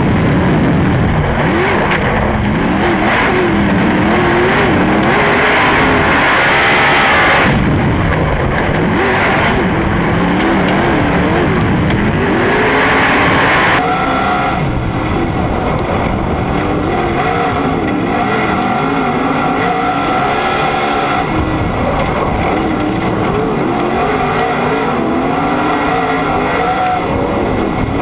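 On-board sprint car engine running hard, its pitch rising and falling as the car laps the dirt oval through the turns. About halfway the sound changes suddenly and the engine note holds steadier.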